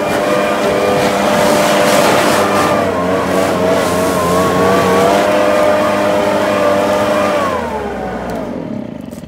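Echo two-stroke gas leaf blower running at high throttle, blowing grass off a mower, its engine pitch wavering slightly over the rush of air. It then winds down and stops near the end, its pitch sliding down.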